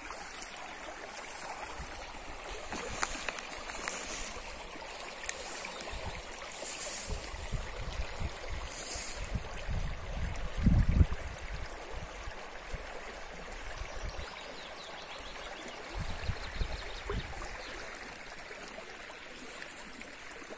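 Shallow, fast river running steadily over stones. A group of low rumbles comes through in the middle, loudest about halfway, and another follows near the end.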